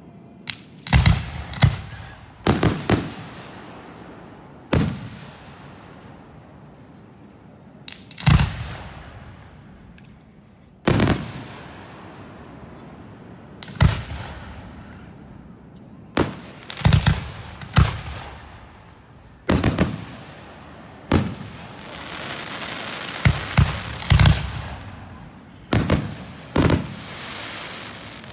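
Aerial fireworks shells bursting, about twenty sharp booms over the stretch, spaced one to three seconds apart with some in quick clusters, each trailing off in a fading echo. A steadier hiss builds between the bangs about two-thirds of the way through.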